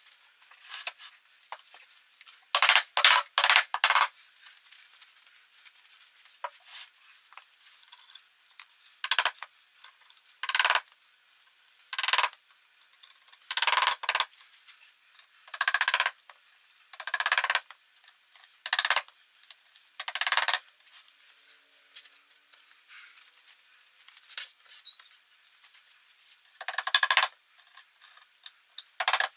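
Rubber mallet tapping on a particleboard cube shelf to seat the pieces and wooden dowels. It comes as clusters of quick, sharp knocks, about a dozen groups each a second or two apart.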